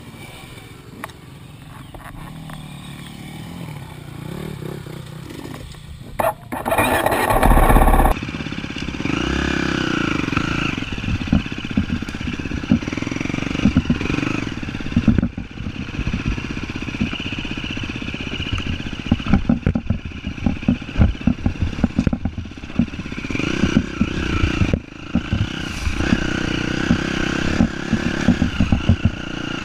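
An off-road vehicle's engine running on a trail ride, its pitch rising and falling with the throttle, with many short clattering knocks from rough ground. About six seconds in, a loud rush of noise lasts a couple of seconds.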